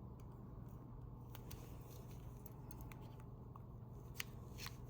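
Faint, scattered small clicks of a pin removal tool being slid over a pin of a 7-pin connector, over a low steady hum; one louder click about four seconds in.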